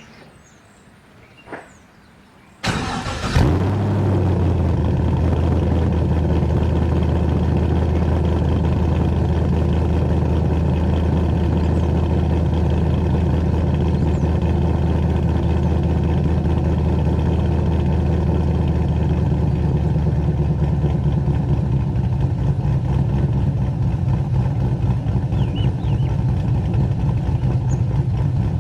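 A short click, then the Holden VY Commodore SS's 5.7-litre LS1 V8 cranks and fires about two and a half seconds in, flaring briefly as it catches. It then settles into a steady idle.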